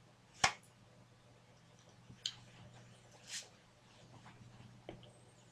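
Quiet room tone with a faint steady low hum, broken by one sharp click about half a second in, a few fainter clicks later and a short soft hiss past the middle.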